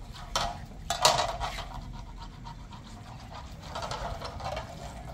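A large black pan being washed with water: splashing and handling of the pan, with two sharp knocks about half a second and one second in, followed by a quieter stretch of rubbing and sloshing.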